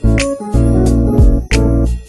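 Background instrumental music with a bass line and a regular beat.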